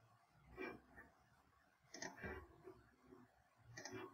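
Near silence broken by a few faint computer mouse clicks, about four spread through the stretch.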